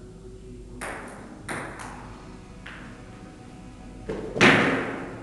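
Table tennis ball clicking sharply off paddles and the table in a short rally, five light hits in about two seconds. About four seconds in comes a louder knock with a short ringing tail, the loudest sound of all.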